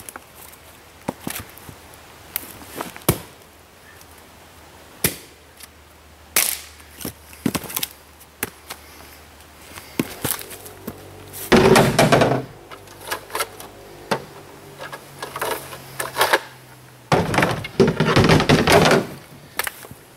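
Split firewood being handled: scattered sharp knocks of pieces striking one another. About halfway and again near the end come longer, loud clattering stretches as armloads of wood are dropped into a pickup truck's bed.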